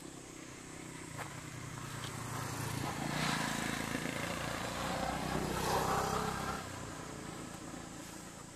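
A motor vehicle, most likely a motorbike, passes by: its engine builds up over about three seconds, stays loud for a few seconds with its pitch dropping as it goes by, then fades away.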